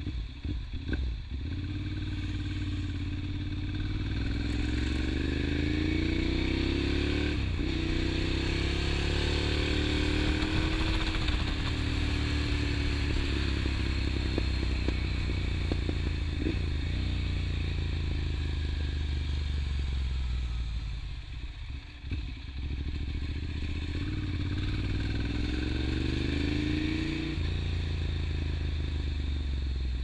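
Ducati Monster 795's air-cooled L-twin engine heard from the rider's seat, pulling through the gears: the note rises under throttle and drops at an upshift about seven seconds in, climbs again and then settles into a steady cruise. Just past twenty seconds the throttle closes and the note sags, then it accelerates again and shifts up near the end.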